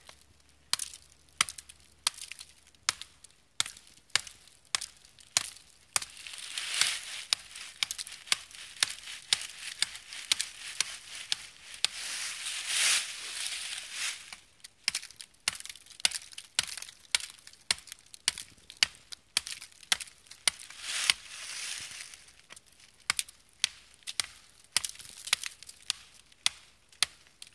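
A credit-card axe blade, zip-tied to a wooden stick, chopping into a sapling trunk with sharp, repeated blows at about two a second. Stretches of hissing noise come between the blows in the middle.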